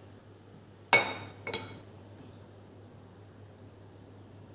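Ceramic bowl clinking twice while being eaten from, about a second in and again half a second later, each clink ringing briefly.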